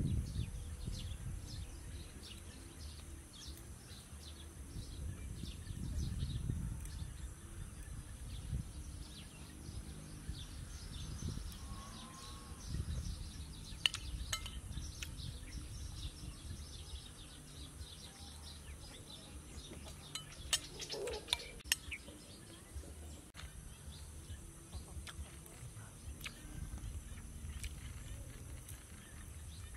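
Open-air countryside ambience: a low rumble of wind on the microphone under many faint bird chirps and calls, with a few sharp clicks partway through.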